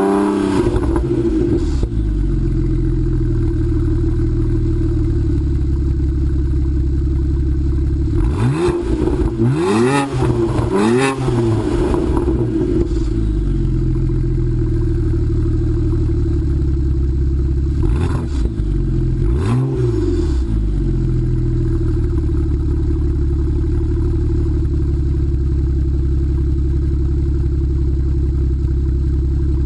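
BMW 335i's twin-turbo N54 inline-six idling through Remus Race axle-back mufflers and catless 3-inch downpipes, blipped in quick free revs. One rev falls back to idle at the start, about three come in quick succession around ten seconds in, and two more follow around nineteen seconds. A steady idle runs between them.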